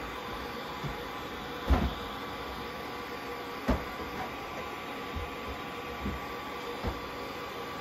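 Hair dryer blowing steadily on a kitten that is being dried after a shampoo, its motor giving a steady hum. A few short low thumps, the clearest about two and four seconds in, come from handling on the towel.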